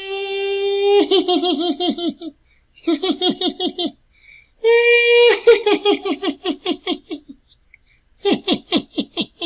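High-pitched evil clown laugh: bouts of rapid cackling 'ha-ha-ha', some opening with a long held note, with short pauses between the bouts.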